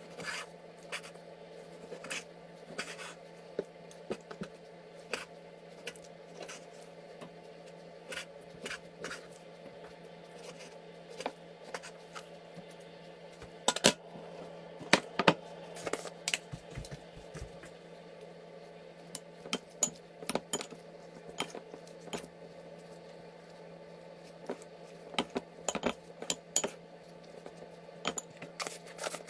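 Kitchen knife tapping and scraping on a wooden cutting board as raw chicken breast is sliced, giving irregular knocks and clicks; later, pieces dropping into a glass bowl and a spoon clinking and scraping against the glass while stirring. A steady low hum runs underneath.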